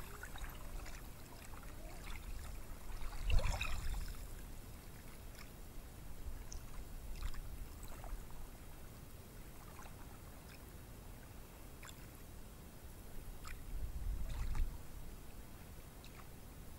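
Low waves washing onto a beach: a steady wash of surf that swells louder about three seconds in and again near the end.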